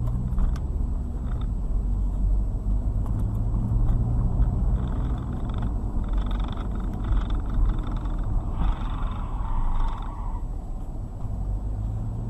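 Car engine and road noise: a steady low hum, with a fainter higher hiss that comes and goes in the middle.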